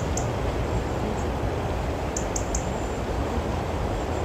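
Steady rushing noise of the River Wye in flood, heaviest in the low end, with a few short faint high chirps about two seconds in.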